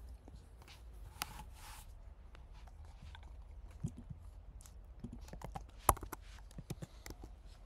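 Faint, scattered clicks of a computer's keys and pointer button, a few at a time, clustering and loudest about six seconds in, over a low steady hum.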